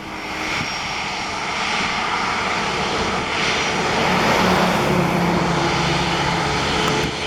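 Airbus A350-900 jet airliner's Rolls-Royce Trent XWB engines running at takeoff power: a loud, steady jet noise with a low hum beneath it, swelling a little toward the middle.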